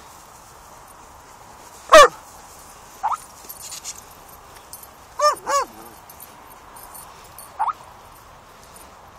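Dog barking: one loud bark about two seconds in, two quick barks a little after five seconds, and short rising yelps around three and seven and a half seconds.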